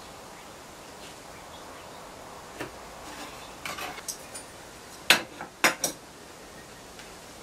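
Steel ruler clinking and tapping on a wooden board as it is lifted and set back down, with three sharp knocks close together about five seconds in.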